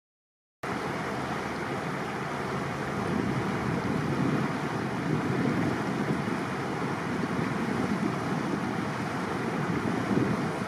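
Steady, low rushing noise of wind on the microphone aboard a boat cruising along a canal, cutting in suddenly about half a second in.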